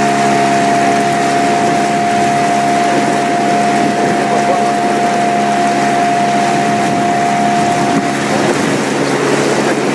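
An engine running at a steady speed, a constant hum with a higher tone that drops out about eight seconds in.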